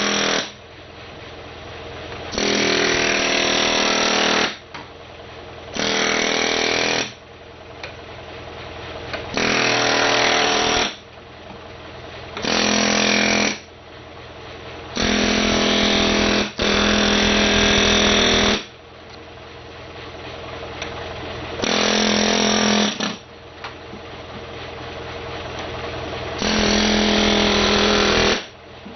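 Chicago Pneumatic air hammer with a molding removal bit, hammering in about eight short bursts of one to two seconds with pauses between, as it shears adhesive-backed body side molding off a car panel.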